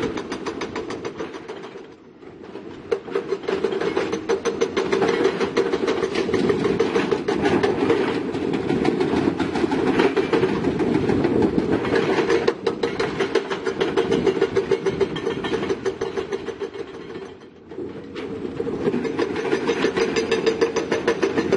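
Heavy tracked earthmoving machine working under load, its diesel engine running with a rapid, steady metallic clatter. The clatter eases off briefly about two seconds in and again near the end.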